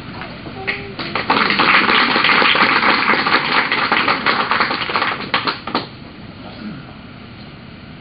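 Audience applauding, a dense patter of hand claps that starts about a second in and dies away about six seconds in.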